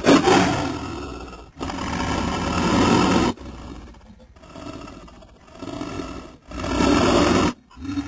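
Custom-made Tyrannosaurus rex sound effect, built by layering film dinosaur roars with slowed big-cat, wolf and elephant calls: two loud roars back to back, then quieter low growls, then another loud roar near the end, each cutting off sharply.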